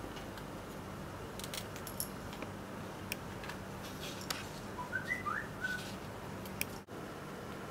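Quiet room tone with a steady low hum and hiss, broken by scattered light clicks and taps as a picture frame is picked up and handled. A few short high chirps come about five seconds in.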